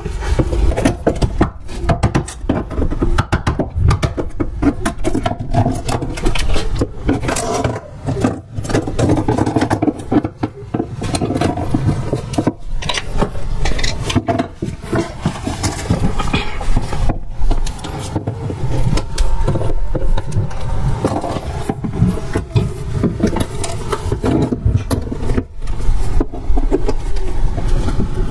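Old stair carpet being pulled up and torn off wooden stairs, with irregular scraping and many sharp knocks and clicks throughout.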